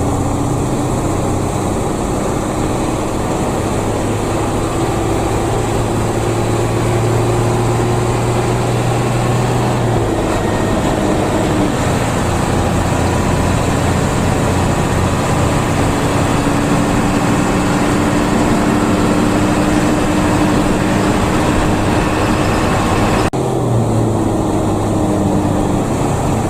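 Inside a moving intercity bus: the engine running under steady road and cabin noise, its low hum dropping in pitch about ten seconds in.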